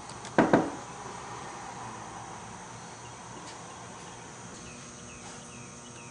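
Two quick thumps close together about half a second in, over a steady low hiss, with a few faint high chirps near the end.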